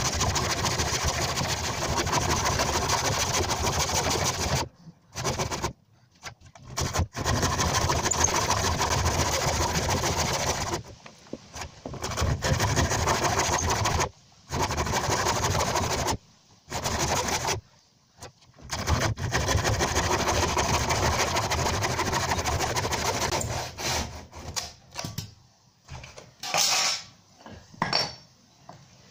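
Hand saw cutting through the bottom of a rotten pine door-frame jamb, in long runs of rapid back-and-forth strokes broken by short pauses. The sawing stops a few seconds before the end, leaving a few scattered short knocks.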